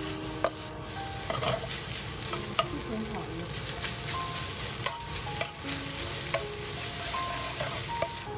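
Egg-coated leftover rice being stir-fried in a hot oiled pan: steady sizzling, with the spatula scraping the pan and clacking against it every second or two.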